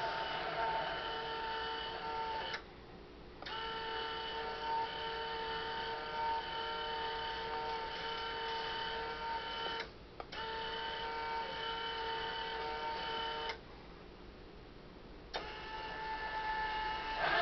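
Small electric gear motors of an RC tracked dump truck whining at a steady pitch. The whine stops and starts again three times: briefly about 3 s in, for a moment around 10 s, and for nearly two seconds around 14 s.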